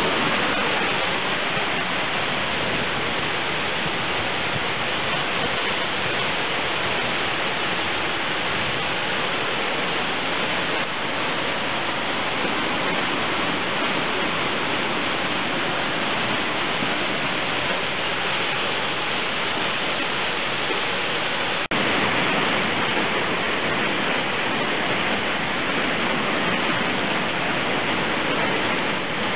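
Heavy downpour: rain hissing steadily and loudly onto trees, roofs and waterlogged ground, with a brief dropout about two-thirds of the way through.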